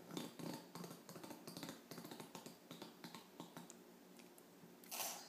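Faint, irregular light clicks and taps, then a short breathy hiss near the end.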